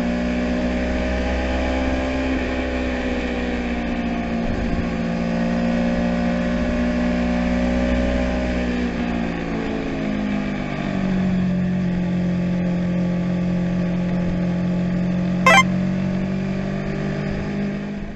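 Kawasaki Versys-X 250 Tourer's parallel-twin engine and exhaust running steadily, its pitch drifting and settling lower about ten seconds in, with a low rumble under it over the first half. A short rising electronic sweep cuts in near the end.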